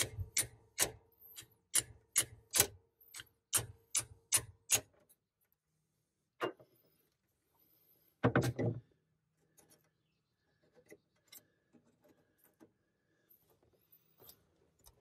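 Hammer tapping a chisel to drive a steel alignment pin out of a Ford M5OD transmission's shifter housing: about a dozen quick strikes, two or three a second. Then comes a pause, one more strike and a short, louder burst of knocks about halfway through, followed by faint light clicks.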